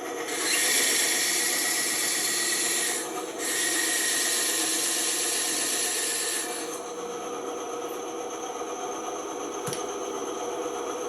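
Band saw running with a steady hum while its blade cuts through wood with a loud hiss. The cut breaks briefly about three seconds in and stops about six and a half seconds in, leaving the saw running.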